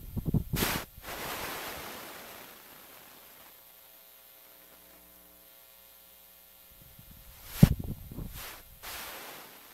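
Telephone pickup coil turning a small magnet's movements into static: scratchy crackling bursts for the first second that fade into hiss, then a faint steady electrical hum while the magnet is held away. Near the end a sharp loud crackle as the magnet is brought back against the coil, followed by a few smaller bursts.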